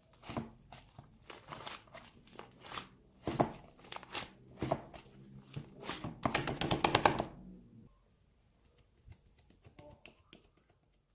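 A run of sharp clicks and crackles, irregular at first and thickening into a dense crackle about six to seven seconds in, then stopping and giving way to fainter scattered clicks.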